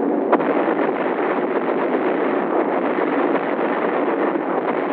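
A steady, dense rumble and crackle of bombs exploding, as dubbed onto an old film sound track, with one sharp click about a third of a second in.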